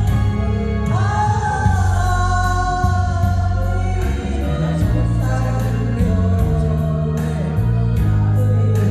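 An amateur singer singing a slow Korean ballad over a backing track, holding long wavering notes over a bass line that steps from note to note. A new sung phrase begins about a second in.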